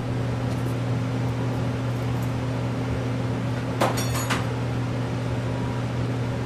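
Shop heater running with a steady low hum and fan noise. A brief, sharp, high-pitched sound cuts in about four seconds in.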